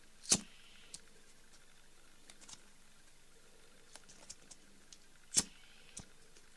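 A flint-wheel pocket lighter struck twice, a sharp click about five seconds apart, with a few faint ticks of handling in between.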